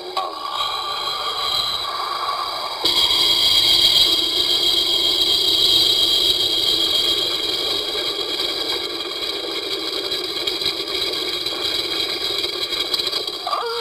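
Synthesized cartoon sound effect: a steady noisy hiss with high ringing tones over it, jumping suddenly louder about three seconds in and holding to near the end.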